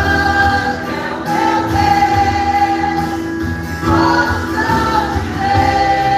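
Live Christian worship song: a church band playing while voices sing long, held notes over a steady low beat.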